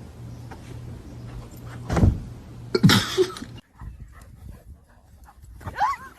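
A dog whimpering in short, bending whines near the end, after two thumps about two and three seconds in. A low steady hum stops suddenly partway through.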